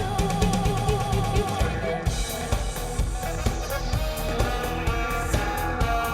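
Instrumental pop band music with no singing: a drum kit keeps a steady beat under bass and guitar.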